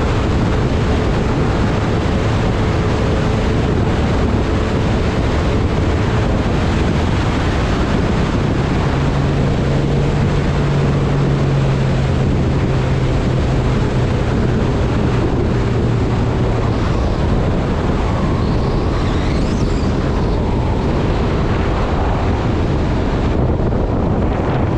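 Mercury XR2 outboard motor running steadily as the boat is under way, with water rushing past the hull and heavy wind noise on the microphone. A deeper engine hum comes up for several seconds midway.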